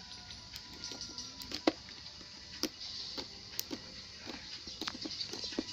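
Slime squeezed and worked by hand, making irregular sticky clicks and pops.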